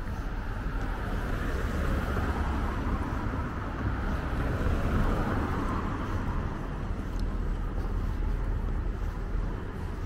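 Street traffic with wind rumbling on the microphone: a car passes close by, its tyre and engine noise swelling through the middle and fading as it drives away.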